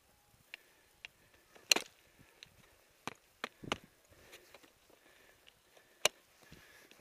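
Scattered sharp knocks and clicks of skis, boots and a ski pole on packed snow as a skier shuffles his skis and plants a pole. The loudest knock comes about two seconds in, a few smaller ones follow around the middle, and another sharp one comes near the end.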